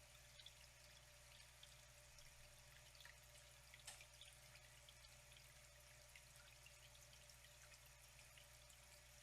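Faint flowing water trickling, with scattered small drips and splashes; one slightly louder drip about four seconds in.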